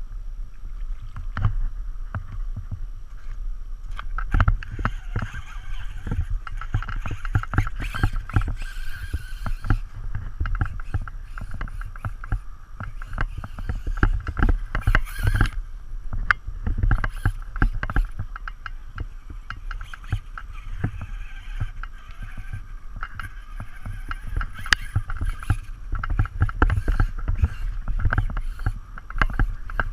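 Traxxas Slash 2WD RC truck running on a 1900kv brushless motor, with a steady whine and many irregular clicks and knocks throughout.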